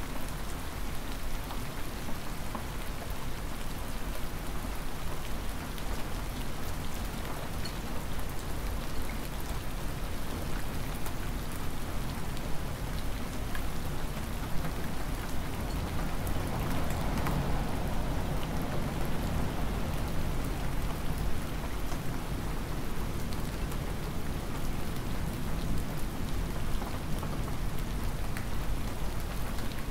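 Hard, near-freezing spring rain falling steadily, with many single drops ticking on nearby surfaces. The rain swells briefly about halfway through.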